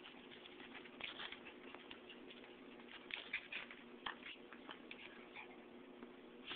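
Faint scuffling and pattering of a small dog and a kitten play-fighting on carpet: irregular light clicks and rustles, busiest about three to five seconds in, over a steady low hum.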